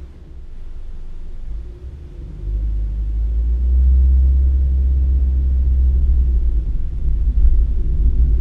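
Low rumble of a car's engine and road noise heard from inside the cabin, growing louder about two and a half seconds in as the car picks up speed.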